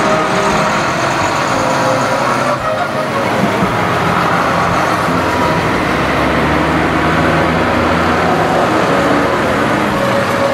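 Vintage diesel tractor engines running steadily, with a brief dip about two and a half seconds in.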